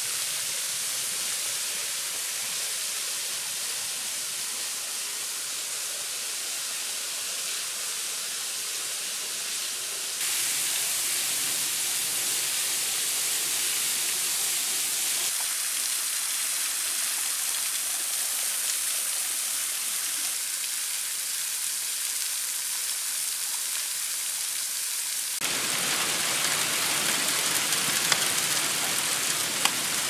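Steady hiss of falling water: a thin waterfall spilling over rock amid falling rain and sleet. The sound changes abruptly about ten seconds in and again near twenty-five seconds, where it gets louder and fuller, with a couple of sharp ticks near the end.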